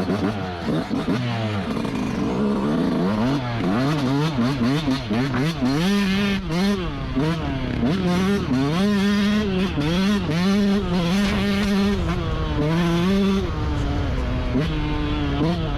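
Yamaha YZ125's single-cylinder two-stroke engine revving up and down over and over as the dirt bike is ridden, its pitch rising and falling about once a second. The revs hold high for a moment near two-thirds through, then drop to a lower, steadier note.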